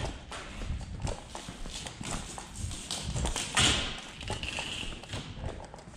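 Footsteps on a concrete shop floor: irregular light knocks and scuffs, with a brief hiss a little past halfway.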